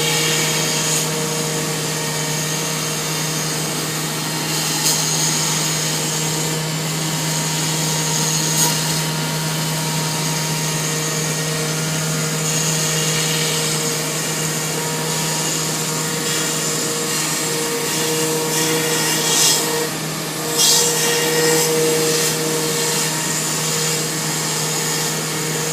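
A 5-axis CNC milling machine's spindle runs steadily as it cuts a foam sunroof part, giving a constant hum and a steady higher tone over a cutting hiss. There are a few brief louder scrapes as the cutter bites.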